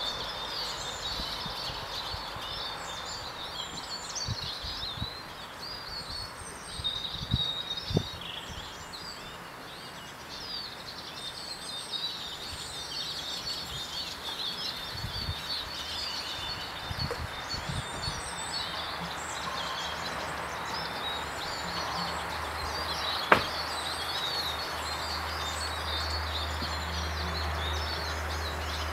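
Woodland birdsong: many small birds chirping and singing at once, high-pitched and continuous. A single sharp click sounds about two-thirds of the way through, and a low steady hum comes in near the end.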